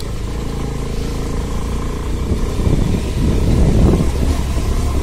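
A 150 cc motorcycle engine running steadily as the bike rides a rough gravel track, heard from the rider's seat. About halfway through, the steady engine tone gives way to an uneven rumble from the bumpy surface.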